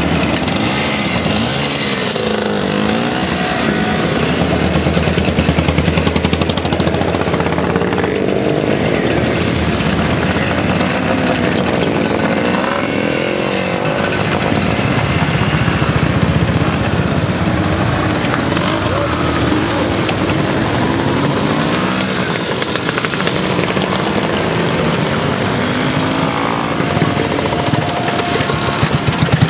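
Classic motorcycles and scooters riding past one after another, engines running and revving, the pitch rising and falling as each machine goes by.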